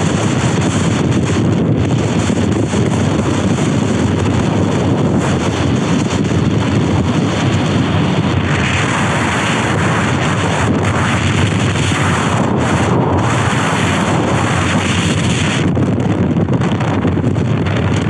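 Strong storm wind buffeting the microphone: a loud, continuous rumble, with a harsher hiss for several seconds in the middle.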